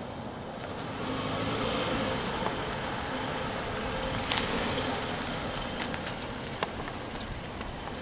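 Sedan driving slowly across a paved lot toward the listener and pulling up, its engine and tyres getting louder from about a second in and easing off after about five seconds. A few sharp clicks come through, the strongest about four seconds in.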